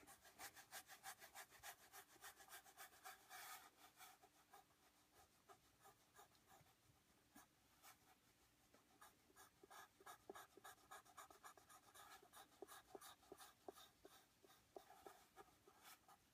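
Faint pencil strokes scratching on paper: many quick short strokes in a row, thick in the first few seconds, thinner for a while, then thick again from about nine seconds in.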